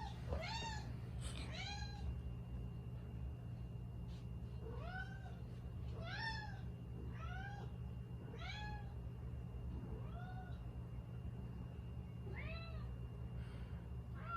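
A domestic cat meowing over and over in short calls that rise and fall in pitch. There are about a dozen of them, with a pause of a few seconds after the first three.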